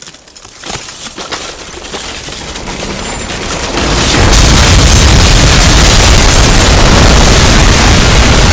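Building-collapse sound effect: scattered cracking and crumbling that grows louder, then about four seconds in a very loud, continuous deep rumble of collapsing debris.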